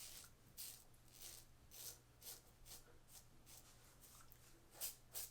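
RazoRock Lupo 72 double-edge safety razor scraping through lather and stubble in short, faint strokes, about two a second, with a louder pair near the end.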